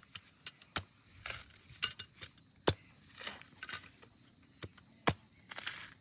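Irregular sharp knocks and clinks of hard objects being handled, about half a dozen over the stretch. Short scraping rustles come between them.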